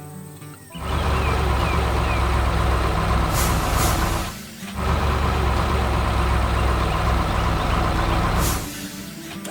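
Heavy truck engine running in two long stretches with a short break in the middle, with brief air-like hisses.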